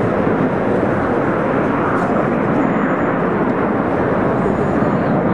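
Jet engine noise from Boeing F/A-18 Hornets flying low overhead: a loud, steady rush of sound.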